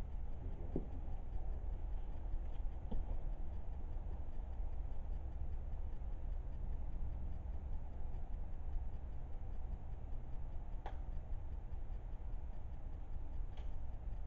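Steady low background rumble and hiss with a few faint, isolated clicks or ticks: one about a second in, one around three seconds, one near eleven seconds and two near the end.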